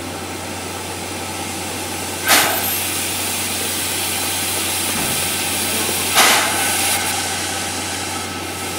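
C11 steam locomotive standing in steam, giving a steady hiss and hum, broken twice by short, sharp bursts about four seconds apart.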